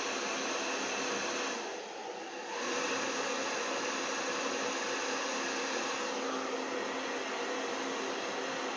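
Handheld hair dryer running steadily, a rushing blow of air with a faint motor whine, used to blow puddles of acrylic pour paint out across a canvas. The sound briefly weakens about two seconds in, then picks up again.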